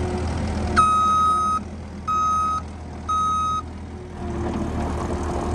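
Case skid steer's backup alarm beeping three times as the machine moves in reverse, over the steady low hum of its engine, which is stuck at idle and will not rev up.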